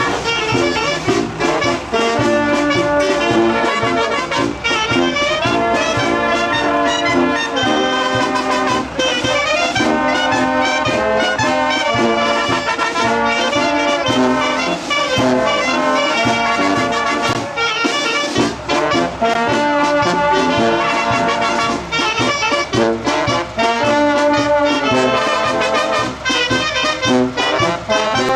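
Brass band music: trumpets and trombones playing a melody over a steady beat.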